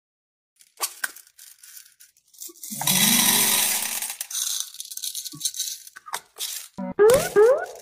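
Small beads poured into a cup of a muffin tray, a dense rattling clatter lasting about a second and a half. Near the end come two quick rising whistle-like glides.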